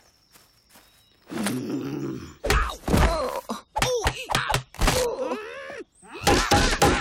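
A cartoon character's wordless vocal sounds. A low groan starts about a second in, then comes a run of loud grunts and grumbling noises that bend in pitch, broken by short pauses, with a couple of dull thumps.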